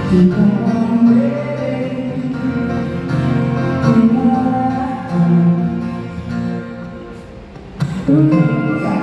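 Live band music during a sound check: a singer over guitar and other instruments. The music dips in level about six seconds in and comes back in strongly just before the end.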